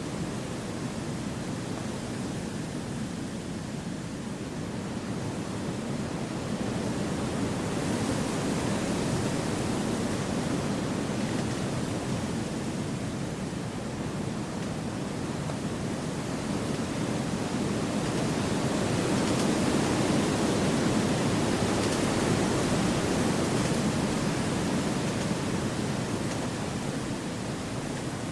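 Wind rushing through forest trees, a steady rush that swells and eases in slow, gentle gusts, rising about a third of the way in and again past the middle.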